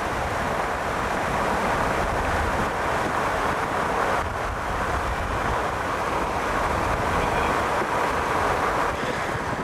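Car driving at speed: a steady rush of wind and road noise.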